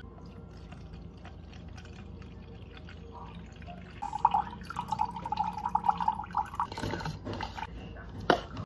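Liquid pouring from a jug into a plastic measuring jug: a stream with a wavering pitch starting about halfway through and lasting about three seconds. A single knock near the end.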